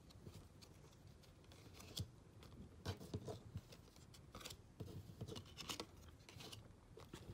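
Faint, irregular clicking and rustling of trading cards in clear plastic holders being handled and sorted by hand, with a few sharper taps as cards and holders knock together.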